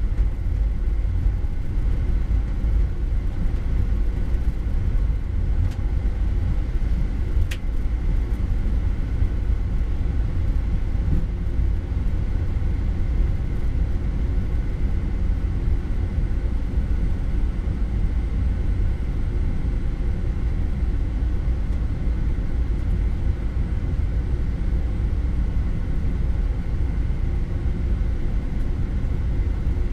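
Boeing 787 Dreamliner taxiing, heard from the flight deck: a steady low rumble of engines at taxi power and the rolling airframe, with a faint steady whine above it. One short tick sounds about seven and a half seconds in.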